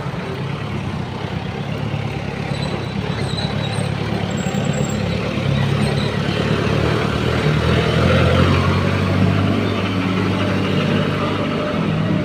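Street traffic: motor vehicle engines running close by on the road, a steady low hum under the general street noise, growing somewhat louder about eight seconds in.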